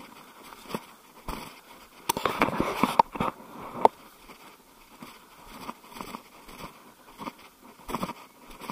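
Dry bracken and scrub crackling and scraping as a person pushes through dense undergrowth on foot, with irregular twig snaps and footfalls. A denser burst of rustling comes about two seconds in, ending in two sharp snaps.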